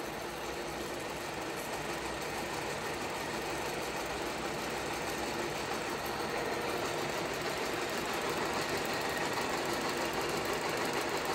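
TOS FA4V vertical milling machine running its knee in vertical power feed: a steady mechanical running sound from the feed drive.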